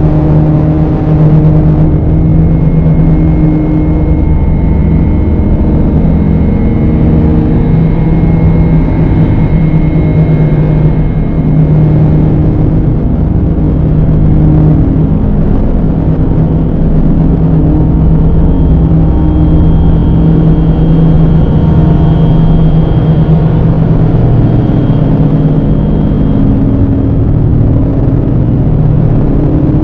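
Dark ambient drone music: a loud, dense low rumble with several long held tones that shift slowly, and faint high tones drifting in and out above.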